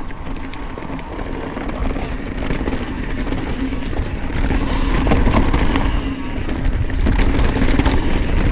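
Riding noise from a mountain bike descending dirt singletrack: wind buffeting the action-camera microphone and tyres rolling over the trail make a steady low rumble, with many small clicks and rattles from the bike over bumps.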